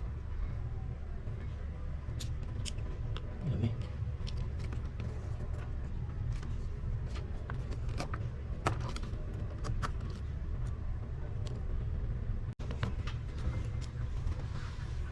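Scattered small sharp clicks and taps of hand tools and parts during an iPhone 6 Plus battery replacement, over a steady low rumble. The sound cuts out for an instant a few seconds before the end.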